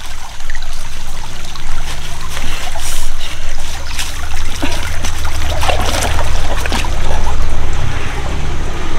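Water of a small stream trickling, over a steady low rumble.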